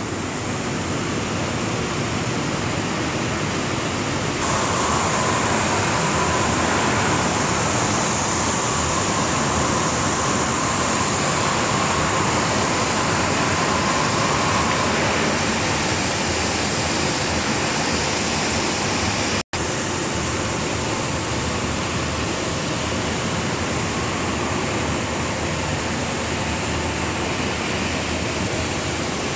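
Steady rushing noise of the running machinery of a French-fries production line, with a faint whine from about four seconds in. The sound cuts out for an instant about two-thirds of the way through.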